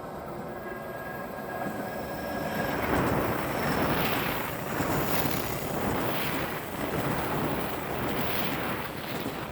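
Odakyu Line train passing close by: its noise swells about three seconds in and rises and falls in surges about once a second, with wind on the microphone.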